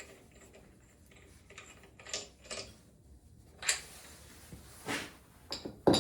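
Hand tools clinking and scraping against metal engine parts during a teardown: about half a dozen short, sharp clicks and knocks with quiet between them, the loudest near the end.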